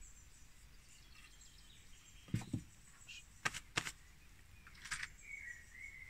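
A few light wooden knocks and clicks as pine frame battens are handled and set in place: one around two and a half seconds in, then two sharp ones close together about a second later. Faint bird chirps sound in the background.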